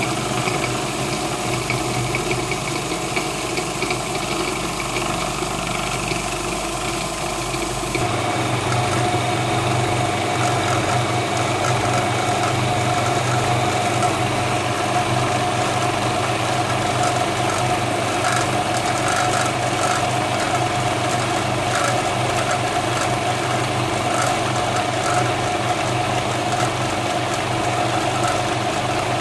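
Magimix Compact 3150 Automatic food processor running steadily, its motor and blade grinding peanuts into peanut butter paste. Its hum changes abruptly about eight seconds in.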